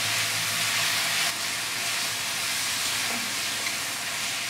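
Mushrooms and onions with ground spices sizzling in olive oil in a wok, a steady frying hiss, while a spatula stirs them.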